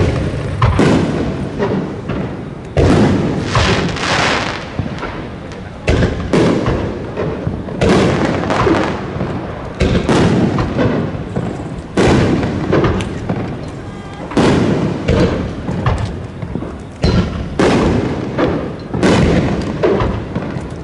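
Aerial fireworks shells being launched and bursting in quick succession: a sharp boom every one to two seconds, each trailing off before the next.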